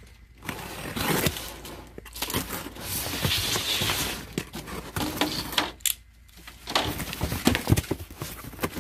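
Cardboard box handled and its packing tape slit with a box cutter, then the flaps pulled open: irregular scraping, rustling and tearing of tape and cardboard, with a few sharp clicks near the end.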